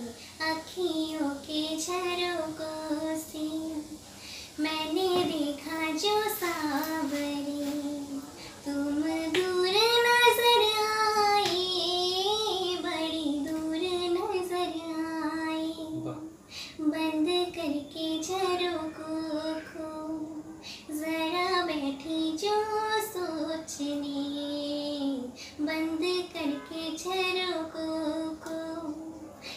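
A girl singing a Hindi film song solo and unaccompanied, one voice with long held, gliding notes, reaching its loudest on a high held note about ten seconds in.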